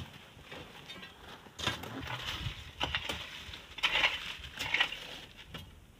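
Hand tools digging into sandy gravel: a handful of separate scrapes and knocks of hoe and shovel blades into sand and stones, the loudest about four seconds in.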